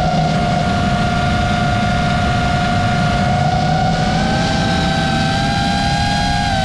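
FPV racing drone's brushless motors and propellers whining steadily in flight, over a rushing of wind and prop wash. The pitch rises slightly about four seconds in as throttle is added, then falls near the end.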